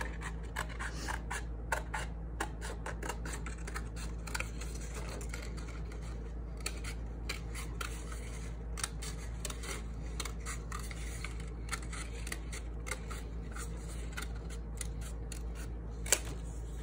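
Scissors snipping through paper: a run of short, irregular snips as a small circle is cut out.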